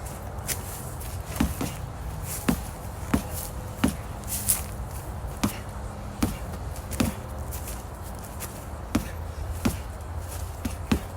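Footsteps at an easy, fairly regular pace, each a sharp knock about every second or less, over a steady low rumble.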